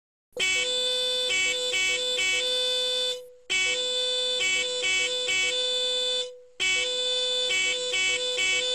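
Short electronic jingle of buzzy, steady-pitched tones, with a held note under shorter changing notes, played three times in a row with brief gaps between.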